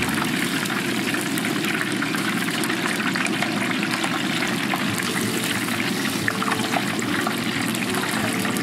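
Battered chicken pieces deep-frying in a large pan of hot oil: a steady, vigorous sizzle with many small crackling pops.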